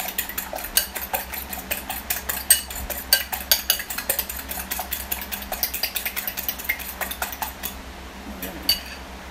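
A fork beating raw eggs in a glass bowl, clicking rapidly against the glass several times a second. The beating thins out to a few scattered clicks about eight seconds in.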